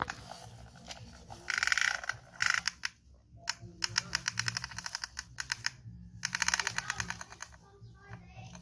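Toy truck rattling along as it is pulled: fast trains of clicks in bursts that stop and start, with short breaks.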